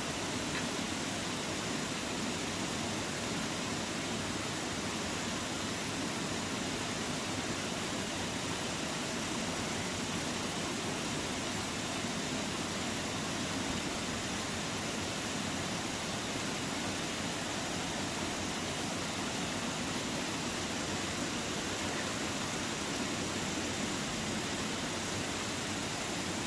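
Steady rushing of a stream flowing, an even wash of water noise that does not change.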